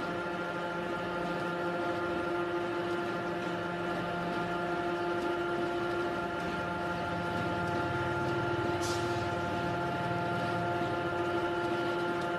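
A motor running steadily at one unchanging pitch, with a brief high tick about nine seconds in.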